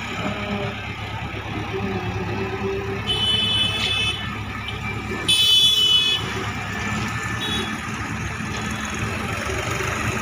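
Diesel engines of a JCB backhoe loader and tractors idling steadily. Over them a vehicle horn sounds twice, each time for about a second: once about three seconds in, and again, louder, a little after five seconds.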